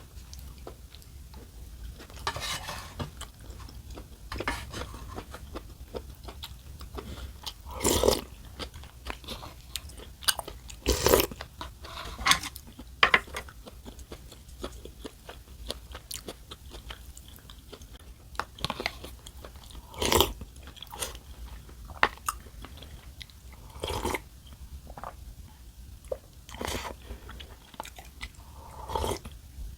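Close-miked eating: a person chewing and crunching food in irregular mouthfuls, with scattered sharp clicks.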